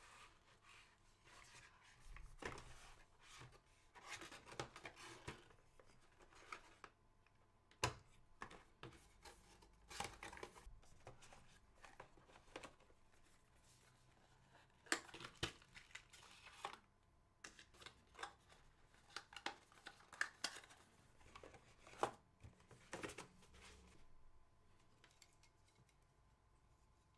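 Faint handling of a cardboard fan box and its packaging: scattered light taps, scrapes and rustles of cardboard, with a few sharper clicks.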